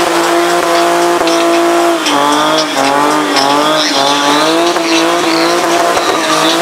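Nissan 350Z doing donuts, its engine held at high revs while the rear tyres spin and squeal. The engine pitch holds steady at first, then from about two seconds in it dips and wavers up and down as the car slides around.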